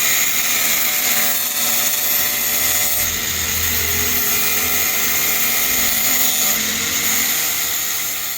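High-speed electric motor running steadily with a whine, starting suddenly at full speed and tailing off near the end.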